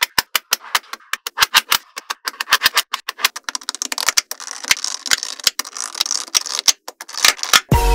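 Small magnetic balls clicking against each other as rows of them are pressed into place by hand, a rapid, irregular run of sharp clicks. Music with a heavy bass comes in just before the end.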